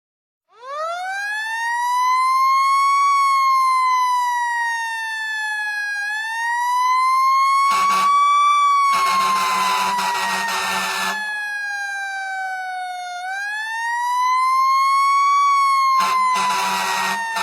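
Fire truck siren wailing. It starts about half a second in with a quick rise, then slowly falls and rises again in long sweeps. Over it sound a short horn blast about eight seconds in, a longer one just after, and another starting near the end.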